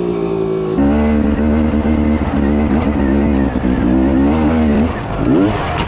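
Dirt bike engine under load, its revs rising and falling unevenly with the throttle, and a quick rev-up near the end. For about the first second another engine's note slides steadily down before the sound changes abruptly.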